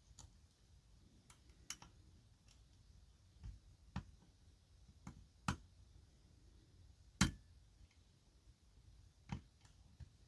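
Lock pick and tension wrench working the pins of a pin-tumbler challenge lock under hard tension: faint, irregular metallic clicks, about ten of them, the loudest about seven seconds in, as the pins are lifted and one sets.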